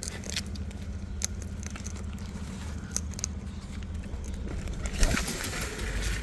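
Scattered light clicks and crackles of birds' beaks picking at seed in a feed bucket, over a low steady rumble, with a louder rustle about five seconds in.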